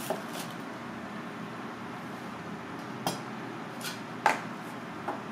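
Kitchen knife cutting a breaded, deep-fried fish cutlet on a plastic cutting board: a few sharp knocks of the blade on the board, the loudest about four seconds in, over steady background noise.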